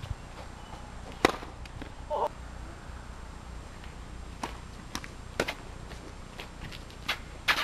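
Tennis rally on a hard court: sharp pops of the racket strings meeting the ball and the ball bouncing off the court, single impacts one to two seconds apart, the loudest about a second in.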